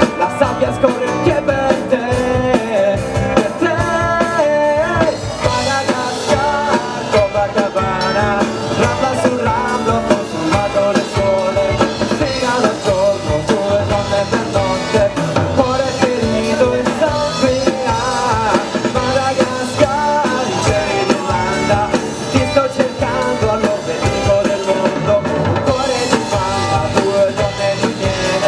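Rock band playing live: electric guitars, bass guitar and drum kit, with a male lead singer's vocals over them.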